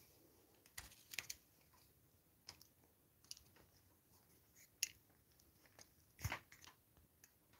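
Near silence with scattered faint clicks and light knocks, small handling noises. The loudest is a soft thump a little over six seconds in.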